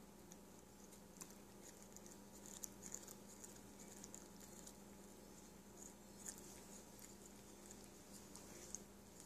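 A cat chewing a lettuce leaf: faint, irregular crisp crunches and clicks, coming in small clusters.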